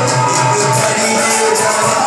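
Live music through a hall's loudspeakers: a man singing a held, melismatic melody into a microphone over instrumental backing.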